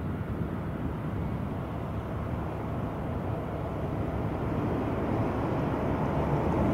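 Cessna 210 Centurion's piston engine and propeller running at low taxi power, a steady rough drone that grows gradually louder as the plane comes closer.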